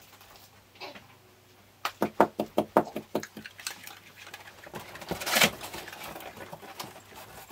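A quick run of sharp knocks about two seconds in, then the top flaps of a large cardboard bike box being pulled open, with cardboard scraping and rustling, loudest about five seconds in.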